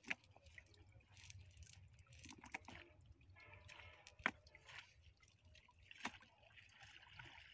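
Faint water drips and small sharp clicks as a wet fishing net is picked over by hand, over a low rumble.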